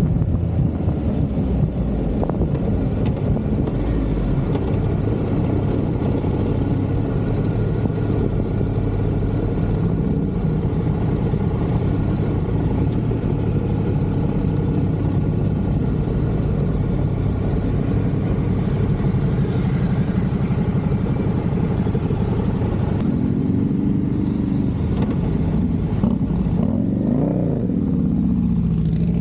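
Motorcycle engine running steadily, its note rising and falling in a few sweeps near the end.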